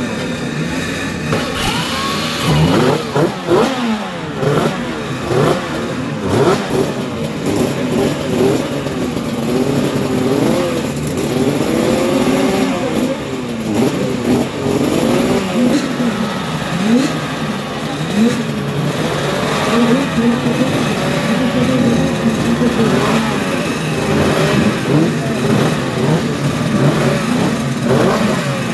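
Several Yamaha two-stroke racing motorcycle engines warming up, revved again and again, their pitches rising and falling and overlapping.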